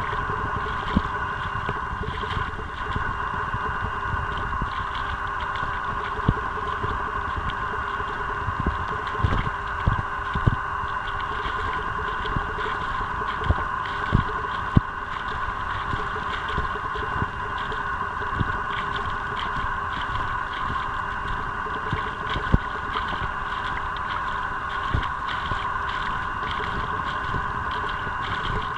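A steady mechanical hum that holds one pitch throughout, with irregular low thuds and rumble of wind on the microphone.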